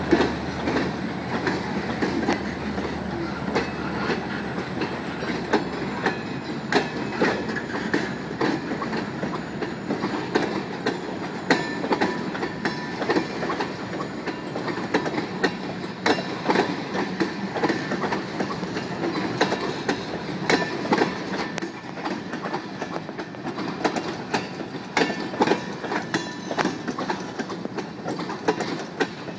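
Freight cars rolling past close by, first a scrap-metal gondola and then loaded tank cars. A steady rumble of steel wheels on rail is broken by frequent sharp, uneven clacks as wheelsets cross rail joints.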